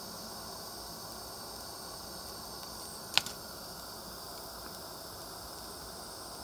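Gas torch flame hissing steadily while it heats the band for silver soldering. A single sharp click sounds about three seconds in.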